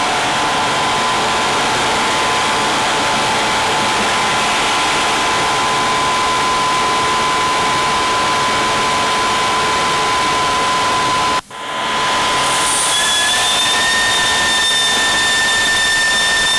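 Industrial sanding machine running steadily with a whine. The sound drops out briefly about 11 seconds in, then the machine resumes with a higher-pitched whine.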